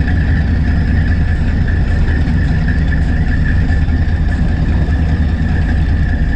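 Fishing boat's engine running steadily: a constant low drone with a steady higher whine over it.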